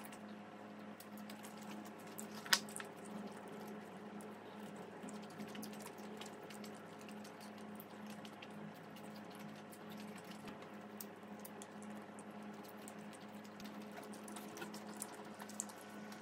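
Quiet, wet chewing and mouth sounds of eating seasoned fried chicken, with scattered faint clicks and one sharper click about two and a half seconds in, over a steady low hum.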